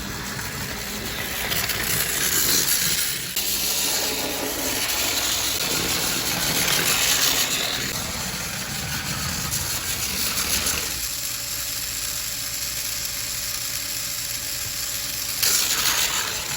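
Trackmaster toy train's small battery-powered electric motor and gears running at 3 volts as the engine travels along its track, a steady mechanical whirr with rattling. About eleven seconds in the sound thins and a faint steady whine comes through.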